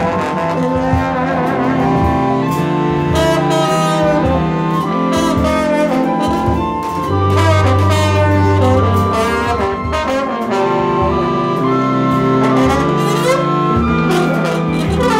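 Large jazz ensemble playing live: massed saxophones and brass over low held notes from the sousaphones and double bass, with some sliding horn lines and cymbal and drum strokes.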